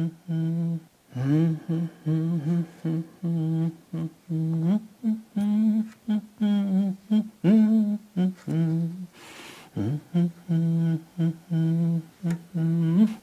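A man humming a tune with his mouth closed, in short separate notes with a few upward slides between them.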